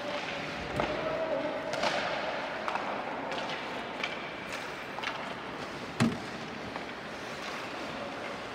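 Ice hockey play in an indoor rink: steady arena noise with skates and sticks on the ice, scattered sharp clacks, and one louder sudden knock about six seconds in.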